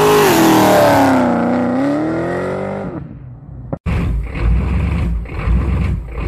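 Dodge Challenger's engine revving during a burnout, its pitch dipping and then climbing again before it fades out about three seconds in. After a sharp click just before four seconds, a heavy truck engine rumbles deep and low at idle with uneven surges.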